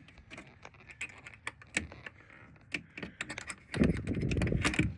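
Scattered light clicks and taps, then about a second of loud low rumbling near the end.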